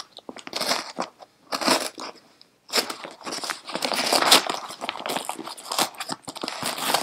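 Yellow padded paper mailing envelope being torn open by hand: crinkling and ripping paper in irregular bursts. There is a brief pause about two seconds in, then steady crackling and tearing.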